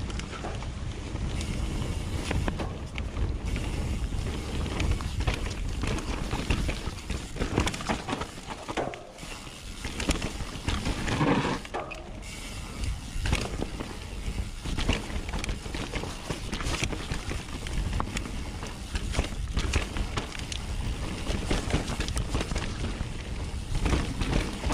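Helmet- or bike-mounted camera ride noise from a Nukeproof Mega 290 mountain bike going downhill: tyres rolling over dirt and rocks, with a running clatter of frame, chain and suspension knocks, under steady wind rush on the microphone.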